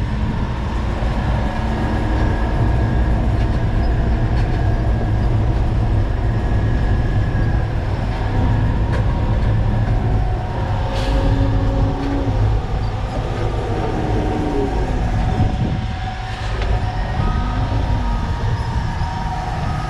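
Concrete mixer truck's diesel engine running as the truck drives, a heavy steady low rumble with rattles. The engine note rises and falls a few times in the second half.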